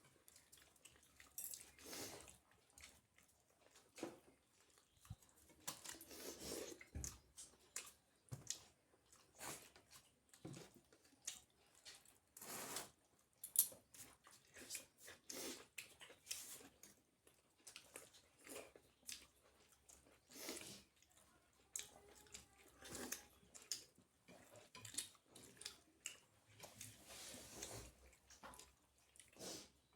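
A person chewing and eating with their hands: many short, irregular mouth clicks and smacks, with quiet gaps between them.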